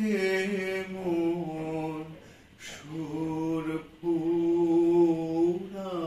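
A man singing a Bengali song unaccompanied, drawing out long, slow notes in several phrases with short breaks for breath between them.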